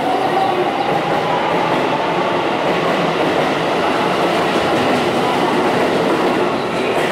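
Keisei 3000-series electric train pulling out of the station. Its Toyo IGBT-VVVF inverter whine rises in pitch over the first second or so, then gives way to a steady rumble and clatter of wheels on the rails as the cars pass.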